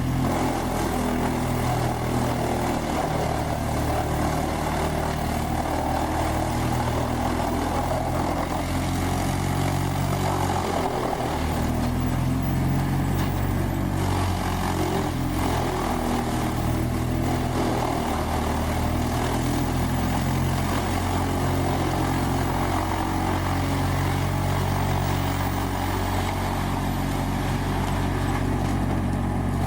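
A whole tree chipper's heavy engine running steadily: a deep, even engine drone with a noisy upper layer, its pitch shifting slightly now and then.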